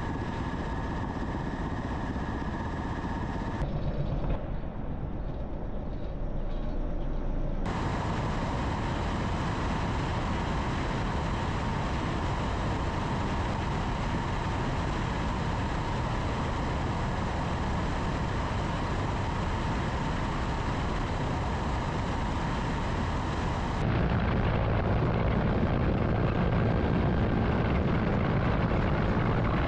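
Mi-8 helicopter turbine engines and rotor running in low-level flight, heard from on board: a steady dense noise with a thin whine. Its character changes abruptly about 4, 8 and 24 seconds in, as the footage cuts between clips.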